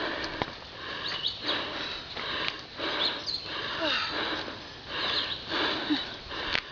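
Hard breathing of a person hurrying uphill, rough breaths in and out about once a second, with a few footstep-like clicks.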